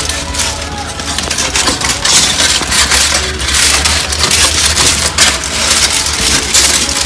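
Chef's knife cutting through the scales and skin of a whole bream on aluminium foil, scoring it on both sides, in an uneven run of scraping cuts.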